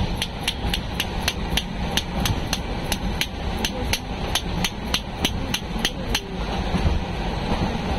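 Steel jhalmuri mixing tin being shaken by hand, clinking sharply and evenly about four times a second, stopping about six seconds in. A steady train rumble runs underneath.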